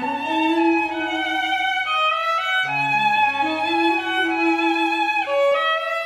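A violin playing a slow melody of long held notes over a low sustained cello line. There is a brief break in the notes a little after five seconds.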